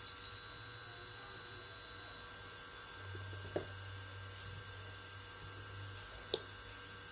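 Quiet room tone with a steady low electrical hum, and two light clicks, about three and a half and six and a half seconds in, from handling the multimeter probes and the inverter circuit board on the table.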